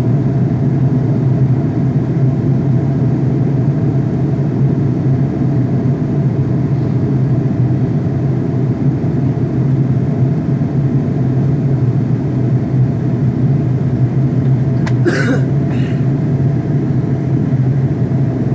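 Steady jet airliner cabin noise at a window seat in flight: the engines and the air rushing past make a constant low-pitched drone. A brief sharp sound cuts in once, about fifteen seconds in.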